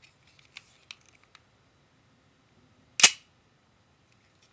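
Metal action of an HFC M190 full-metal gas blowback airsoft pistol being worked by hand: a few light clicks in the first second and a half, then one sharp metallic clack about three seconds in.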